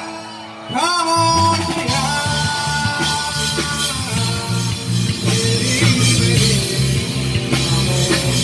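Rock band playing live with guitar over bass and drums. After a brief dip in level at the start, a note slides up about a second in and the full band carries on.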